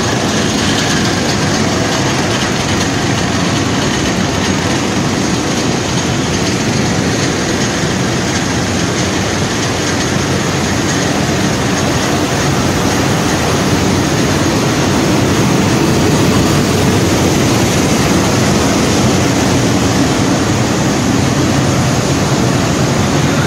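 Bread crumb production line machinery running, conveyors and processing equipment together making a loud, steady factory din. It grows a little louder about two-thirds of the way through.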